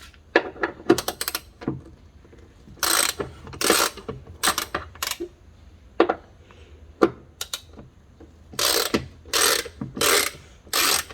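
Ratchet wrench with a T40 Torx socket being worked back and forth to loosen the bolts of a door hinge buffer mount. It makes short bursts of ratcheting clicks, in two runs of several strokes each.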